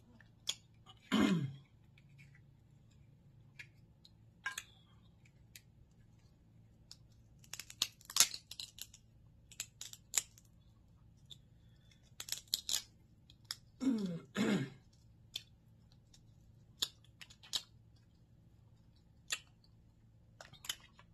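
Crab leg shells being cracked and picked apart by hand: scattered sharp cracks and snaps, in quick clusters about eight, ten and twelve seconds in. Twice the eater makes a short falling hum or grunt, about a second in and again near fourteen seconds.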